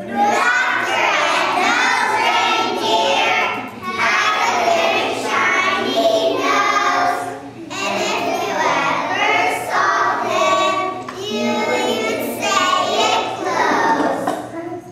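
A group of young children singing together, phrase after phrase, with brief breaks between lines.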